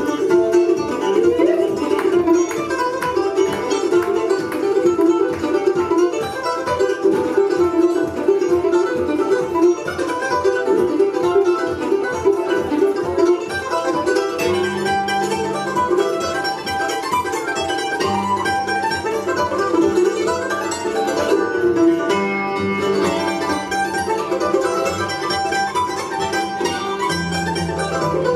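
Live bluegrass instrumental played on mandolins, acoustic guitar, fiddle and upright bass: a fast run of rapid plucked mandolin notes, with deeper upright-bass notes coming in about halfway through.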